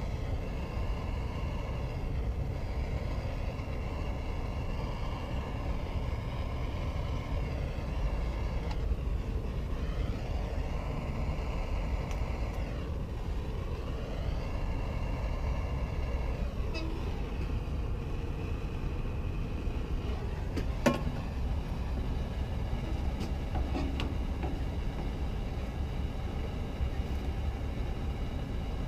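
Bobcat A300 skid steer's diesel engine running steadily, its higher whine dipping in pitch twice partway through. A single sharp knock about two-thirds of the way in.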